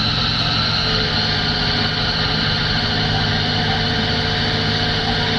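Heavy diesel engines of hydraulic excavators running steadily at idle, a constant low hum with a steady high whine over it.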